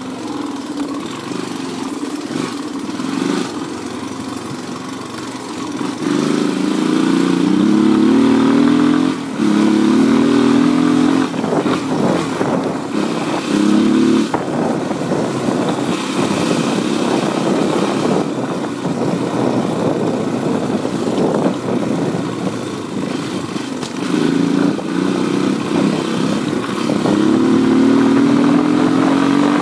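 Honda XR200 dirt bike's single-cylinder four-stroke engine running under way, its pitch climbing and dropping back several times as it accelerates through the gears.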